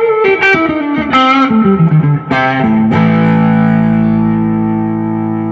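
Duesenberg Starplayer Special electric guitar on its neck pickup in full humbucker mode, played through a Fender '65 Reissue Deluxe Reverb amp: a quick descending run of single notes, then a chord struck about three seconds in and left to ring out.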